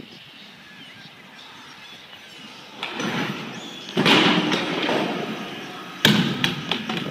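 A BMX bike and its rider crashing onto a concrete floor: a sharp clattering impact about six seconds in, followed by a few smaller knocks as the bike tumbles. Before it, from about three seconds in, a louder rush of noise builds.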